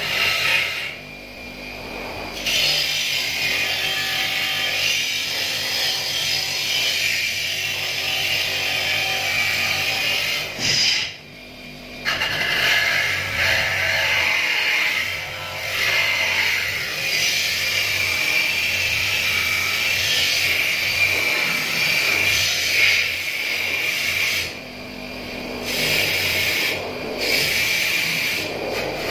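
Bench grinder running with its spinning wheel pressed against a chrome motorcycle mudguard: a steady, high grinding hiss of metal being polished and stripped of rust. It eases off three times, near the start, about a third of the way in and near the end, as the mudguard is lifted away and repositioned.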